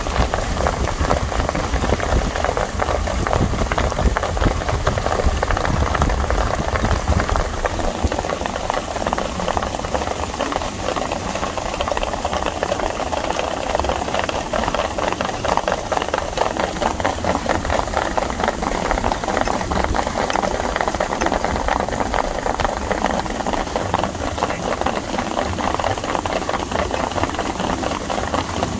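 Wind rushing and buffeting over the microphone of a car moving at speed, steady and loud, with a low rumble underneath.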